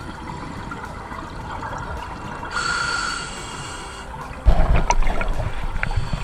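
Underwater sound of a scuba diver breathing through a regulator: steady water noise, a brief breath hiss about two and a half seconds in, then a sudden, louder burst of bubbling and crackling water noise from about four and a half seconds in.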